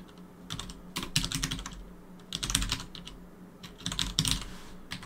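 Computer keyboard typing in three short bursts of rapid keystrokes, with brief pauses between them.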